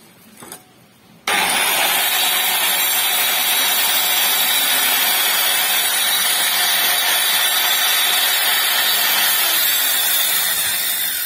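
Handheld electric tile cutter running at full speed, its blade cutting through a glazed ceramic tile strip. The sound starts abruptly about a second in and holds steady and loud, easing off slightly near the end.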